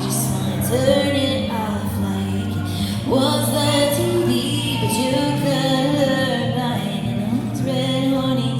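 A woman singing a song over sustained instrumental accompaniment, her voice gliding between notes in long phrases.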